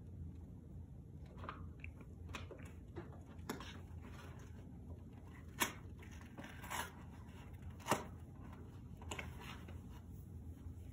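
Wrapping paper being torn and crumpled off a gift box, in scattered rips and crinkles, with two sharper snaps of paper a little past the middle.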